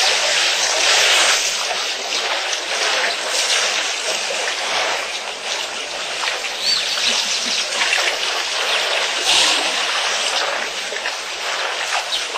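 Water trickling and splashing as elephants drink at a waterhole: a steady hissing wash with a few louder splashes.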